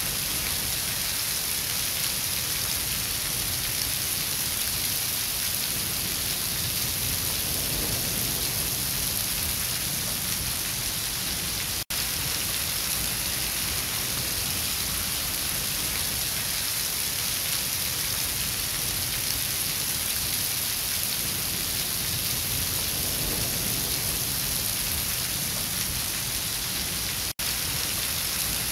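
A thin stream of water falls from a broken concrete wall and splashes onto the ground below, making a steady hiss of falling water. The sound cuts out for an instant twice.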